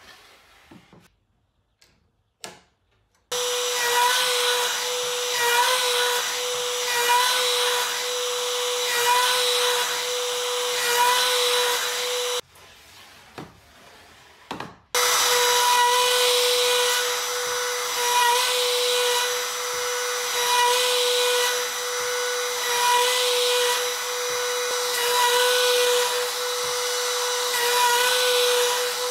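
Makita trim router running at a steady high-pitched whine while cutting across a wooden board to flatten it, guided along a rail. The cutting noise swells about every two seconds with each pass. A few clicks come before it starts about three seconds in, and it drops out for a couple of seconds near the middle.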